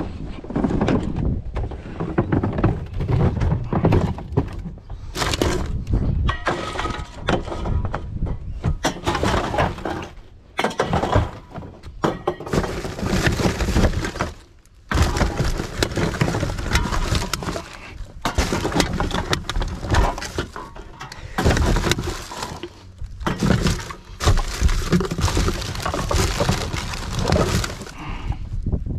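Rummaging through rubbish in a wheelie bin by gloved hands: plastic bags and packaging crinkling and crackling, with aluminium drink cans clattering and knocking together as they are picked out.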